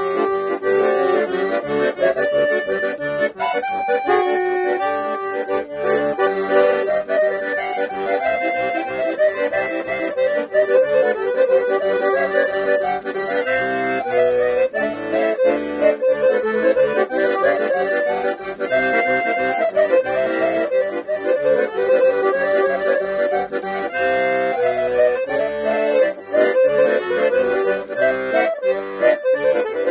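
Piano accordion played solo: a continuous melody in the treble over a regular pulsing bass accompaniment.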